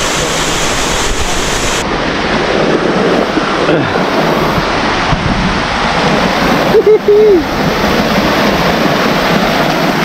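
Waterfall's water rushing steadily and loudly, with faint people's voices and a brief shout about seven seconds in.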